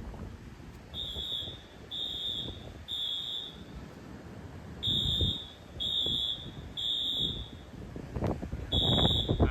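A fire alarm beeping in the three-beep evacuation pattern: short high beeps about a second apart in groups of three, with a pause between groups. Wind rumbles on the microphone underneath.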